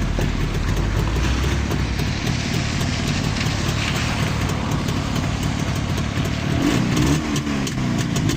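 Jawa 634's 350 cc two-stroke twin engine idling steadily.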